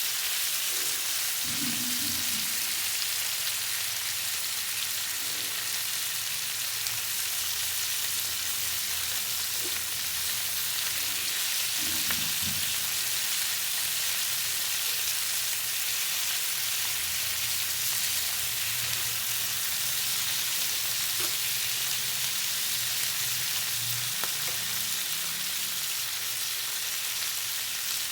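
Food frying in a pan: a steady sizzle with a few faint pops.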